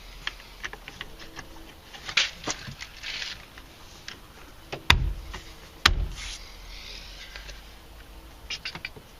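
Clicks and rustles of plastic door trim being handled and pressed into place, with two sharp knocks about a second apart midway.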